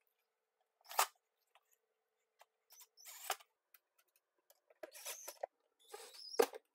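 A cordless impact driver being worked on the faceplate screws along the bottom edge of a dishwasher door: four short clicks and rattles about a second and a half apart, the last the loudest.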